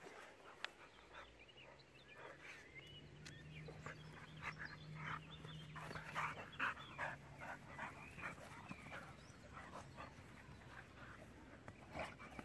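A boxer and a young pitbull play-fighting: quick, short breathy and vocal sounds from the dogs come thick and fast in the middle of the stretch and thin out towards the end.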